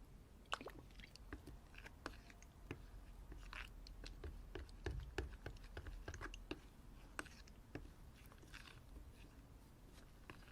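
Slime being played with, giving soft, irregular sticky pops and clicks, several a second.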